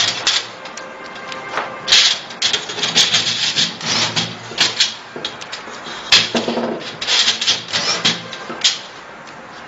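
Irregular scraping, rubbing and clicking of hard parts being handled and moved against each other, with a few sharper knocks, the loudest one about six seconds in.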